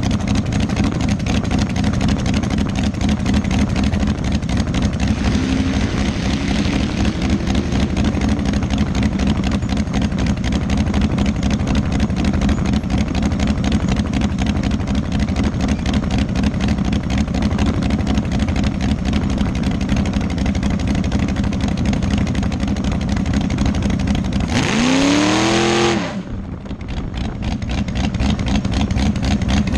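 Dragster engine idling loudly and steadily, heard from on board, with one short rev about twenty-five seconds in before it settles back to idle.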